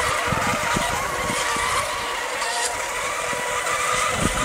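Radio-controlled racing monohull boats running at full speed: a steady high-pitched whine over the hiss of water spray.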